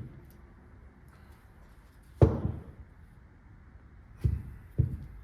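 Three dull knocks on a downhill fork, the first and loudest about two seconds in, then two lighter ones close together near the end, as the crown is struck to work it loose where it sits stuck tight on the stanchions.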